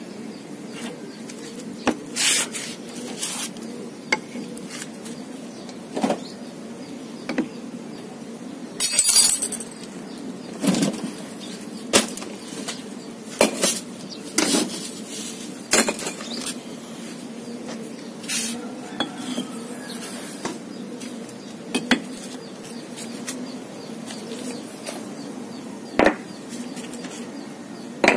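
Red clay bricks being lifted off a plastic garden net and set down, knocking and clinking against each other at irregular intervals every second or two, with a brief rattle about nine seconds in.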